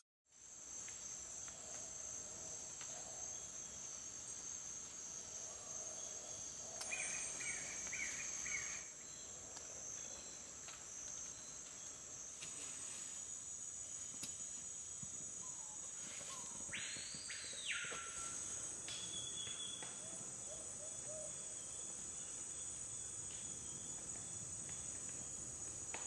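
Amazon rainforest insects keeping up a steady, high-pitched chorus, with a few animal calls over it, including one long call that rises and falls about seventeen seconds in.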